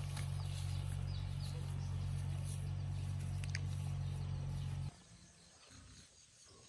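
Outdoor ambience with faint bird chirps over a steady low hum. The hum cuts off suddenly about five seconds in, leaving quieter birdsong and rustle.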